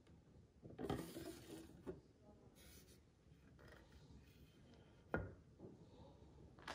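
Faint handling sounds: a brief rubbing scrape about a second in and a single knock about five seconds in.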